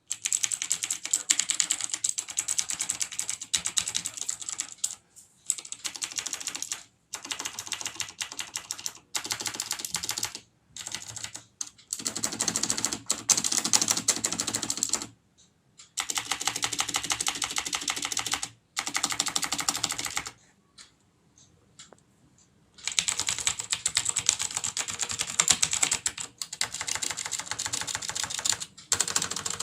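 TVS Gold mechanical keyboard with clicky Cherry MX Blue switches being typed on rapidly: a fast clatter of key clicks in bursts, broken by short pauses and a longer break of about two seconds about twenty seconds in.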